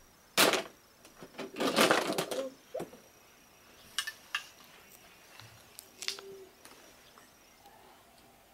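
Plastic toy train track pieces clattering as they are lifted out of a cardboard box and handled, with a loud rattle near the start and a longer burst of clatter about two seconds in, then a few separate sharp clicks as pieces are set down and fitted together.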